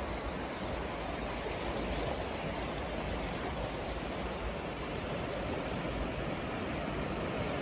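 Steady wash of sea waves on a rocky shore, an even rushing noise with a low uneven rumble underneath.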